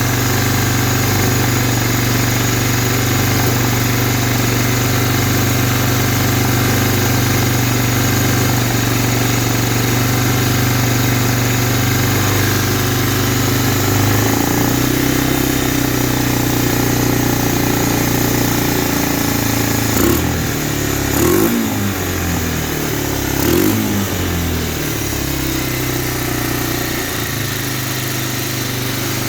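1985 Honda Big Red 250ES's single-cylinder four-stroke engine running at a fast idle after a carburetor rebuild. The idle drops to a lower speed about halfway through, then the engine is revved briefly twice before settling back to a steady idle.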